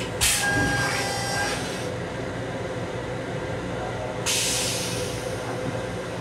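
Flush of an M7 railcar's stainless-steel toilet: a sudden loud hiss with a faint whistle lasting about a second and a half, then a second hiss about four seconds in that fades away. The steady hum of the moving train runs underneath.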